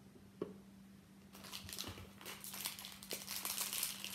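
A light tap of a small plastic toy figure set down on a cardboard box, then from about a second in, continuous crinkling and rustling of toy packaging being unwrapped.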